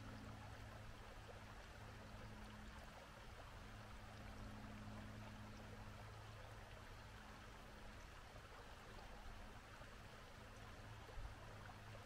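Mountain stream flowing: a faint, steady rush of water.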